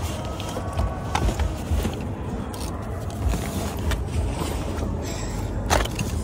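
Luggage being set down and pushed into a minivan's rear cargo area: a few knocks and handling noises, the loudest near the end, over a steady low rumble of the vehicle and outdoor noise.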